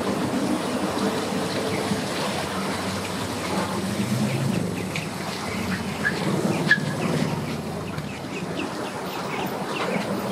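Pickup truck engine running under load as it pulls a boat on its trailer up a launch ramp, a low steady drone, with short bird chirps above it in the second half.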